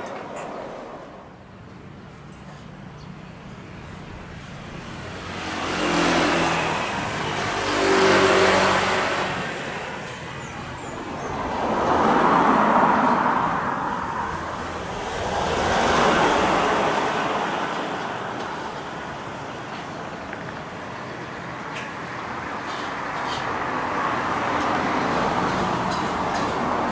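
Vehicles passing one after another, each swelling and then fading.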